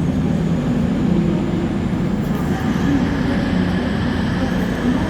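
Train running through a station: a steady low rumble, with a higher whine joining about halfway through.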